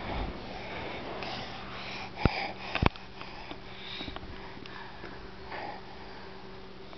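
A toddler breathing and sniffing right against the microphone, with two sharp clicks about halfway through, over a steady low hum.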